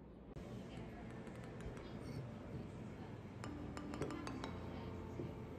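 A metal spoon clinking lightly against a stemmed glass dessert cup, in a quick run of clinks starting a little past halfway, with background music.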